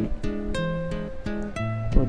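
Background music: acoustic guitar playing a run of plucked notes.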